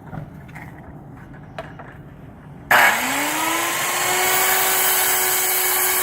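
Circular saw switched on about two-thirds of the way in: the motor whines up to speed and then runs steadily, the blade set shallow for a light score cut on a countertop.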